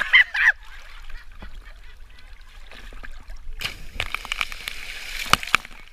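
A brief yell at the start. Then, about three and a half seconds in, a person plunges into the river with a big splash, and water sprays and slaps for a couple of seconds.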